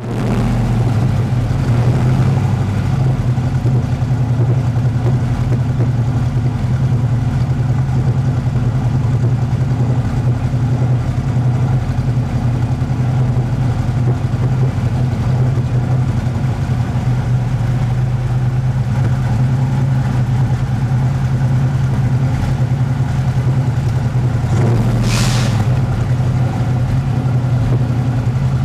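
Restored vintage muscle car engine idling steadily at an even, low pitch.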